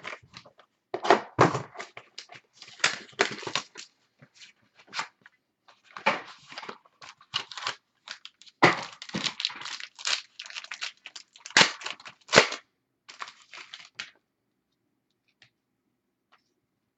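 A football trading-card pack's wrapper is torn open and crinkled, and the cards are handled and slid against each other. It comes in irregular rustling bursts with a few sharper snaps, and stops about three seconds before the end.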